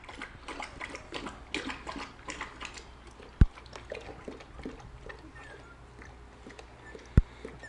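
Newborn German Shorthaired Pointer puppies suckling from their mother: a run of quick wet smacking and clicking sounds, thinning out after about three seconds, with a few faint squeaks. Two sharp thumps cut in, about three and a half seconds in and near the end.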